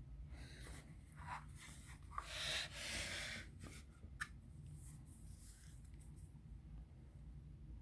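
Rustling and rubbing handling noises, loudest as a scraping swish around the middle, followed by a single sharp click and a few fainter rustles, over a steady low hum.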